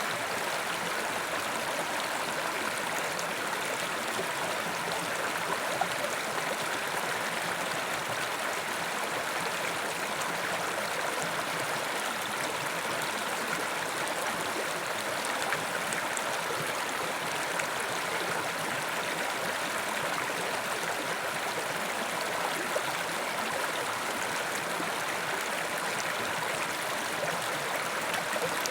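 Carpathian mountain river rushing steadily over rocks, an even, unbroken water noise.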